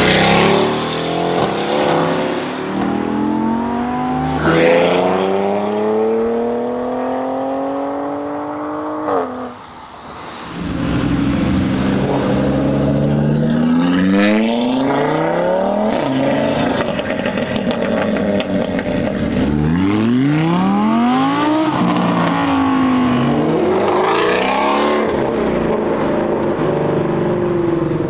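Mercedes-AMG GT R Pro's twin-turbo 4.0-litre V8 through an aftermarket Fi exhaust, accelerating hard. The revs climb, fall back at each gear change and climb again, with short sharp cracks now and then. The sound drops away about nine seconds in and another loud run starts a second later.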